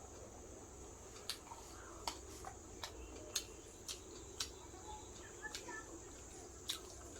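Close-up eating sounds: chewing with a string of sharp, wet mouth clicks and smacks, roughly one every half second in the first few seconds and one more near the end.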